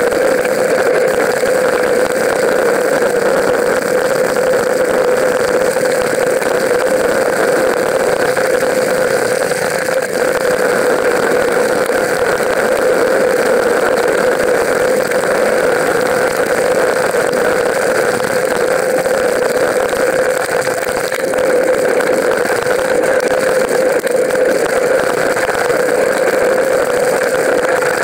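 Steady noise of a mountain bike ride over a dry dirt track: wind on the bike-mounted camera and tyre rumble, with no break or change.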